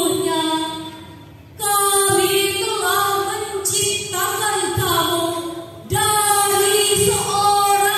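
A young woman's solo voice chanting melodically in long, held phrases, in the melismatic style of Qur'anic recitation. It breaks off about a second in and picks up again on a new phrase, then does the same near six seconds in.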